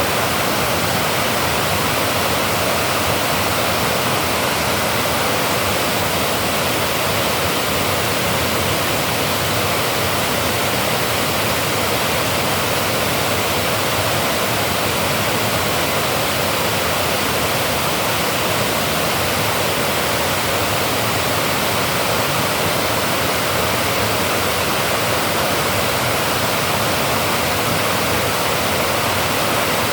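Dam water pouring over or through the dam in a steady, loud rush of falling water, unchanging throughout.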